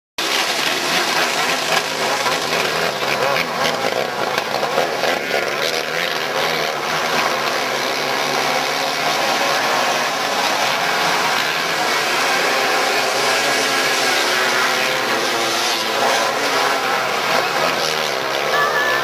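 A pack of outlaw dirt karts racing on a dirt oval, their small engines running at high revs together in a steady, wavering drone that starts just after the opening and cuts off suddenly at the end.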